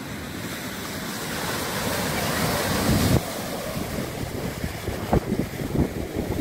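Lake Superior waves breaking and washing up a pebbly beach, a steady surf noise that swells over the first three seconds and then drops off suddenly. After about four seconds wind buffets the microphone in short gusts.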